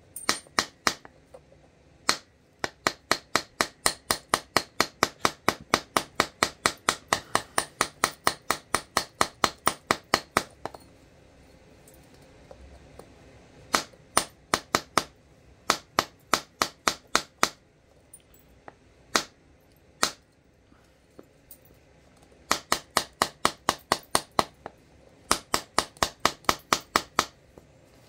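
Flint being knapped: runs of sharp, light tapping strikes on the flint, about four a second, broken by short pauses and a few single taps.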